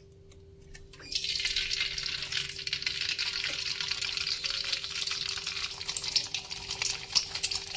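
An egg sizzling and crackling in hot cooking oil in a wok, starting about a second in as it drops into the pan.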